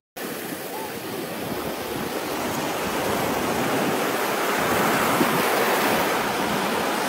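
Small sea waves breaking and washing up over sand at the water's edge: a steady surf hiss that swells a little about halfway through.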